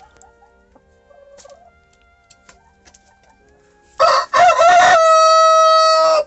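Rooster crowing once, loud and close: two short syllables, then a long held note that cuts off sharply near the end. Before it, about four seconds of faint hen clucking.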